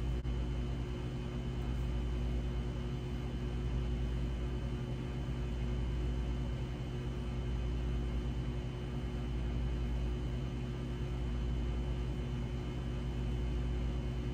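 Steady low mechanical hum with a faint hiss of room background noise, unchanging throughout.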